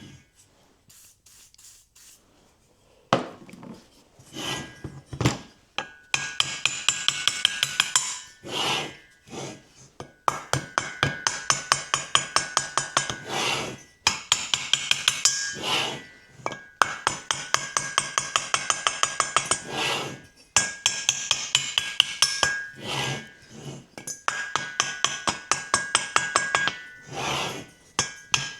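Rapid runs of light hammer taps on metal, about three a second in bursts of several seconds, with a ringing metallic tone, as a stuck valve is worked loose from a Norton Atlas cylinder head.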